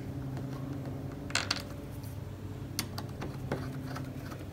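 Small sharp clicks and taps of a 3D-printed belt tensioner and a hex key on an aluminium extrusion's bolt as the tensioner is slid back and the key is set in the bolt: a short cluster about a second and a half in, then a few single ticks, over a steady low hum.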